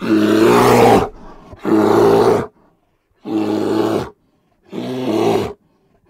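A large animal calling four times in a row: rough, pitched calls about a second long each, with short silent gaps between them.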